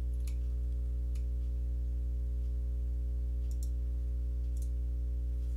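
Steady low electrical hum on the recording, with a few faint computer mouse clicks spread through it.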